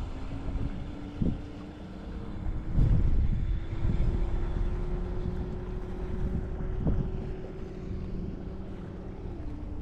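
Wind gusting on the microphone over the steady hum of a distant outboard-powered boat, its pitch dropping near the end as it passes.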